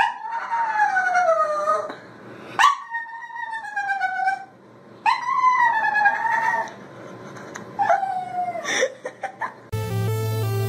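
Small wet dog howling in four long, wavering calls that slide up and down in pitch, then a few short yips. Electronic music comes in near the end.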